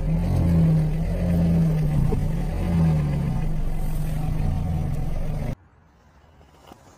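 Car engine running slowly with a low, slightly wavering drone. It cuts off suddenly about five and a half seconds in, leaving near-quiet with a few faint ticks.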